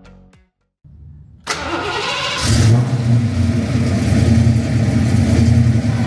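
Fox-body Ford Mustang engine cranking and firing about a second and a half in, then running with a steady low rumble.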